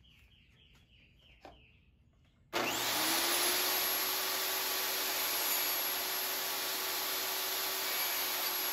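Portable jobsite table saw switched on about two and a half seconds in. The motor spins up within a moment and then runs loud and steady.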